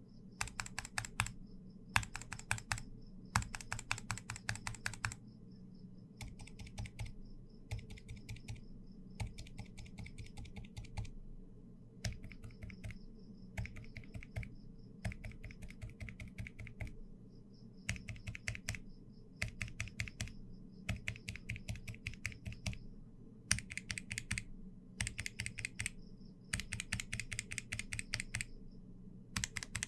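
Mechanical keyboard switches typed on in short bursts of keystrokes, one switch type after another: Gateron Milky Black linears first, then, about five seconds in, noticeably softer and duller Gateron Rose Silent Tactiles, then Durock Dolphin, Daybreak, Purple Medium Tactile and finally Durock Koala switches near the end.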